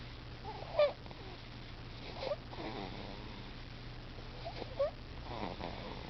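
A sleeping baby snoring: short squeaky nasal sounds on its breaths, the loudest about a second in, with softer noisy breaths between.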